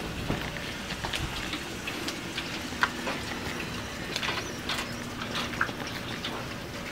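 Dairy barn ambience of cows standing at a feed rail on wet concrete: scattered light clicks and knocks, with a faint steady hum through the middle.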